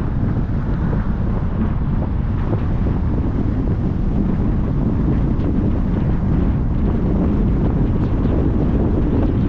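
Steady wind buffeting the microphone, a constant low rumble that does not let up.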